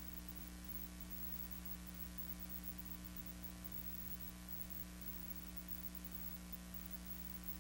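Steady electrical hum with an even background hiss, unchanging throughout; no other sound.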